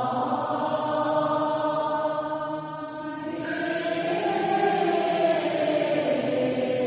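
Background music of chant-like voices holding long sustained notes; about three seconds in the voices move to a new note that slowly rises and then falls.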